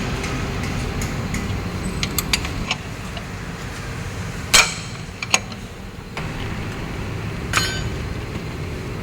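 Sharp metallic clinks and knocks of hand tools on metal while a car's transmission is being taken down, the loudest about four and a half seconds in, over a steady low background rumble.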